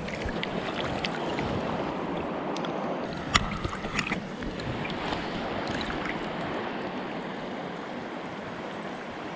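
River water rushing steadily over a shallow riffle, with a few short, sharp sounds about three and four seconds in.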